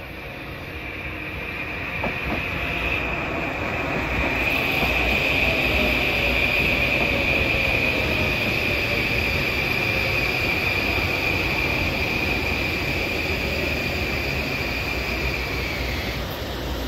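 Metro-North M8 electric multiple-unit commuter train running past, its rumble building as it comes near. A steady high-pitched squeal from the wheels sets in a few seconds in and cuts off suddenly near the end, with a fainter whine slowly falling in pitch beneath it.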